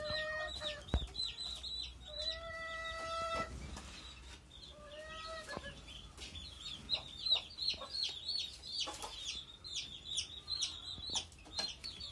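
Desi chicks peeping continuously in rapid, high, falling cheeps, several a second. A hen gives a drawn-out call three times in the first half, and there is a single knock about a second in.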